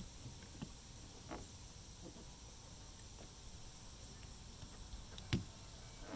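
Light plastic clicks and handling noises of a new wiper blade being worked onto a wiper arm, with one sharp, loud click about five seconds in as the blade's connector snaps onto the arm.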